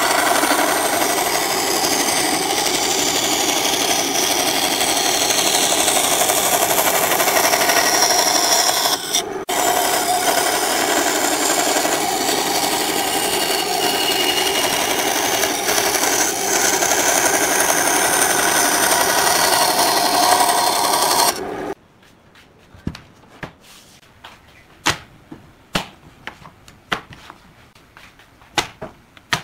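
Benchtop band saw running and cutting curved shapes out of a wooden board, a loud steady noise with a brief break about nine seconds in. About twenty-one seconds in it stops suddenly, and scattered light sharp clicks and knocks follow.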